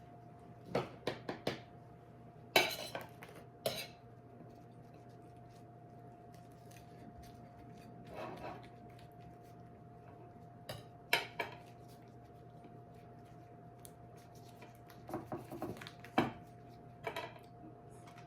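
Cutlery and dishes clinking and clattering in short scattered clusters while food is put together on a plate.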